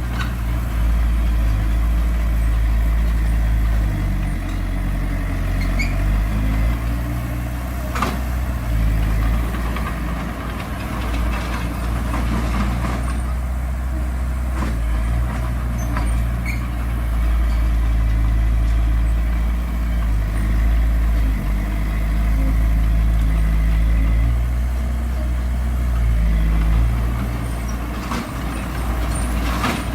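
Heavy earthmoving machinery's diesel engine running under changing load, its low drone stepping up and down in pitch, with a few sharp knocks, the clearest about eight seconds in.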